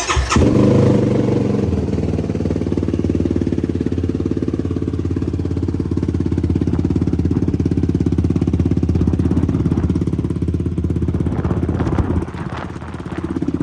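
2020 Yamaha YFZ450R's single-cylinder four-stroke engine starting and settling into a steady, evenly pulsing idle through a new RP Racing full aftermarket exhaust system. The sound dips briefly near the end, then comes back.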